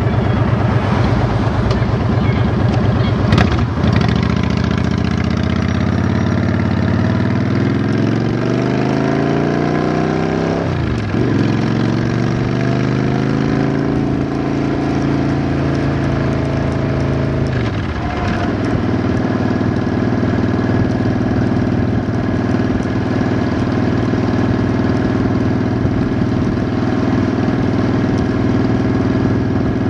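Vehicle engine pulling away from a turn, rising in pitch, dropping sharply at an upshift, climbing again, then easing at a second shift and running steadily at cruising speed. A sharp click about three seconds in.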